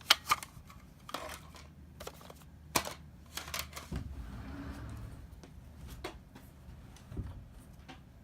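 Scattered sharp clicks and light taps, as of small objects being handled, with a low rumble of handling about four seconds in.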